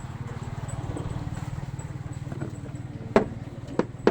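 A vehicle engine idling with a steady low pulsing hum. Three sharp knocks come in the last second or so.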